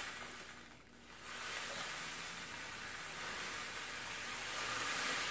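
Melted butter and sugar sizzling in a skillet as crushed cornflakes are poured in from a plastic bag; the sizzle drops away briefly about a second in, then returns steady.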